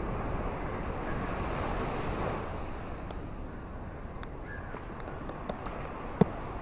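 Steady rain with a rushing wash of wind or surf that is louder for the first two seconds or so, and scattered large drops tapping close by. One sharp tap near the end is the loudest.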